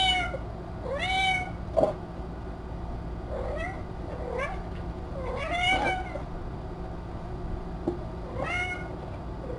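A cat meowing about six times, each call rising then falling in pitch, with a couple of short sharp clicks, the loudest about two seconds in, over a steady low hum.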